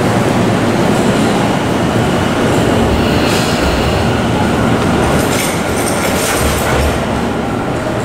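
Tobu 50090-series electric train on the rails in a station, a steady rumble of wheels and running gear. Brief high squeals from the wheels come a few times, mostly in the second half.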